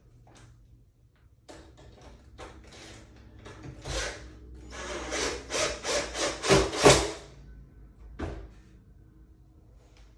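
Cordless drill/driver driving a screw into a pine board in a series of quick, loud pulses over two or three seconds around the middle, preceded by scattered knocks and scrapes of wood being handled.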